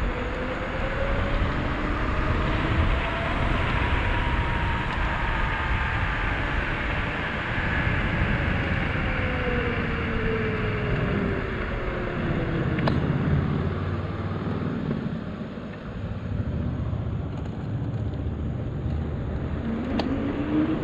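72-volt, 5000-watt DIY electric bike kit being ridden, its motor whine rising in pitch as it speeds up and later gliding down as it slows, under steady rushing road and wind noise.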